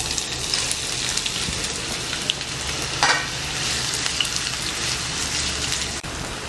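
Chopped onions sizzling in hot oil in a nonstick frying pan as they are stirred with a wooden spatula, with a brief knock about three seconds in.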